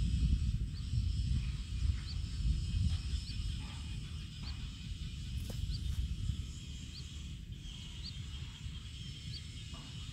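Low rumble of wind on the microphone over a steady high-pitched insect chorus, with a faint short chirp repeating about once or twice a second.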